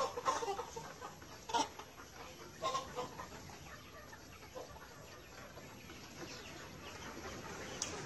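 Chickens clucking, a few short calls in the first three seconds, then only faint background.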